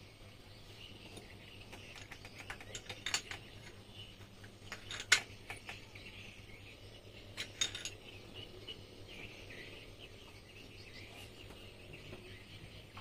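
Metal parts of a Yamaha 15 hp outboard gearbox clinking and tapping as they are handled and fitted together by hand. There are a few sharp clicks about three seconds in, the loudest about five seconds in, and another cluster near the middle. Faint steady chirping runs behind them.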